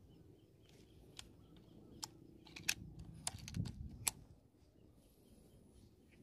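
A scattered series of sharp clicks and knocks from handling the rifle and its scope-mounted camera, busiest and loudest between about two and four seconds in.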